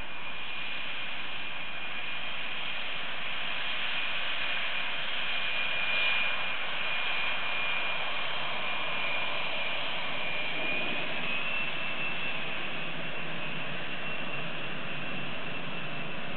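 Twin General Electric F404 turbofans of a Canadian CF-18 Hornet taxiing past: a steady high whine over a jet rush, loudest about six seconds in. About eleven seconds in the whine shifts a little higher and a low rumble comes in as the jet draws past.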